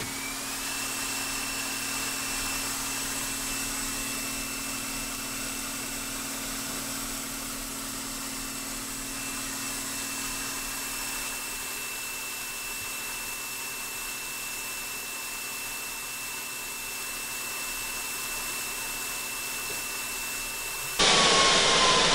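Stick-welding arc from a 3/32-inch 7018 electrode at about 100 amps on a Miller Multimatic 220 AC/DC, burning steadily as the rod is run down to its stub, with a faint steady whine underneath. Near the end it gives way abruptly to a louder hiss.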